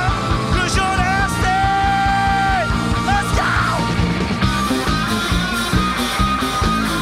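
Live rock band playing: electric bass, electric guitar and drums with a steady beat, and a male lead vocal with long held notes in the first half.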